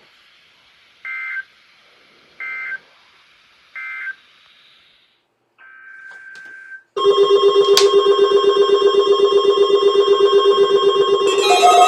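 Three short two-tone data bursts of the Emergency Alert System end-of-message code, about a second and a half apart, marking the end of the weather radio test. About seven seconds in a much louder electronic ringing starts, fast-pulsing with several steady tones, and grows fuller near the end.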